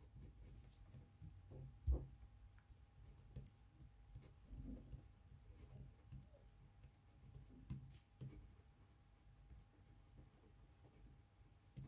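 Faint scratching and light ticking of a ballpoint pen writing on paper, with one soft thump about two seconds in.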